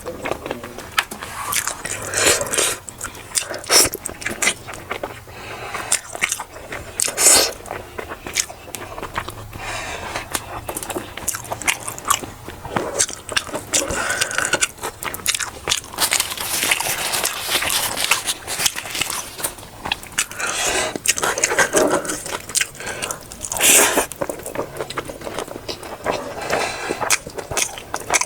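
Close-miked eating: a person chewing and biting food with wet mouth clicks and smacks and some crunching.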